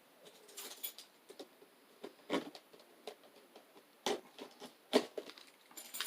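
Hands handling a small cardboard booster box and its plastic packaging: scattered light clicks, taps and rustles, with a few sharper knocks.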